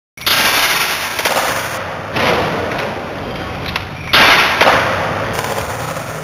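Skateboard wheels rolling with a steady rough noise over a wooden skatepark surface, broken by a few sharp board hits from ollie pops and landings, about two seconds apart.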